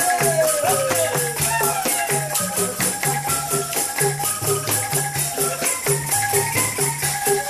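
Upbeat music played for dancing: a steady quick beat with shaken percussion over a repeating bass line. A downward pitch glide runs through the first second and a half.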